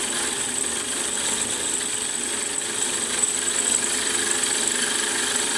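Milling machine spindle running steadily as a 4 mm tapping drill cuts down into a cast-iron steam chest.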